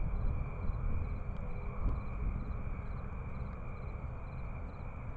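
Crickets chirping faintly in an even, repeating rhythm over a low, steady background rumble.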